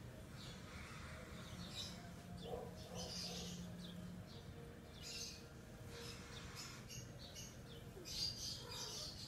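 Small birds chirping in short, irregular bursts, over faint steady low background noise.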